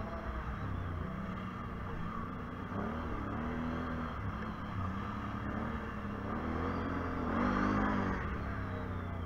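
ATV engine running and being throttled on and off, its pitch rising and falling several times, with the loudest rev about three-quarters of the way through.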